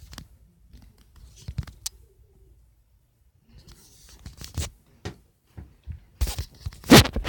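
Scattered rustling and clicking handling noises in irregular bursts, with a quiet gap in the middle and the loudest clatter near the end.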